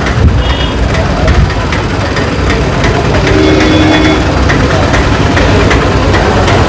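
Street traffic with motor vehicle engines running close by and chatter in the background. A vehicle horn sounds for about a second around three seconds in, after a short high toot near the start.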